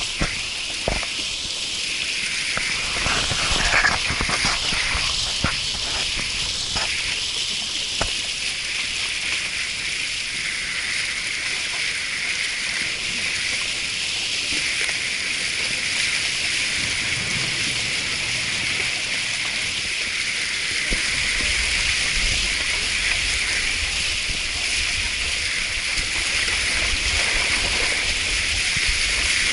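Steady rush of a mountain stream, a loud even hiss of running water. A few knocks and clicks sound in the first several seconds, and a low rumble joins about two-thirds of the way in.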